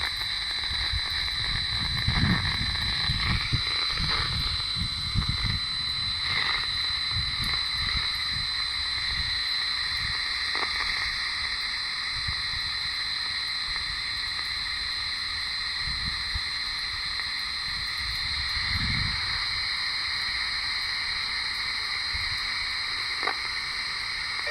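Static hiss from a FAIR MATE HP-100 wideband radio receiver tuned to a distant municipal disaster-prevention radio channel, with a steady high whistle over it. A low fluttering rumble under the hiss is strongest in the first few seconds.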